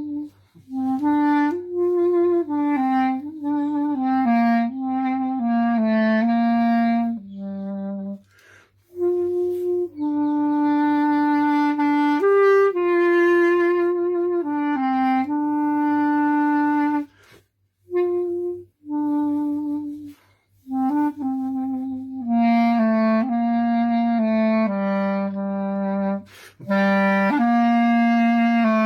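A solo wind instrument playing a slow melody in phrases, one note at a time, with brief pauses between the phrases.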